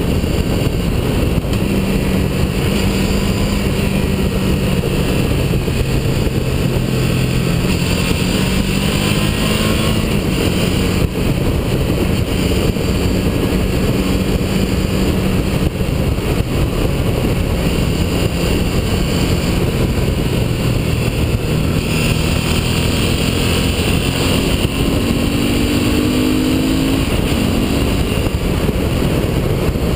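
Motorcycle engine running at road speed under heavy wind rush on a bike-mounted camera's microphone. The engine note climbs a couple of times as the bike accelerates, most clearly near the end.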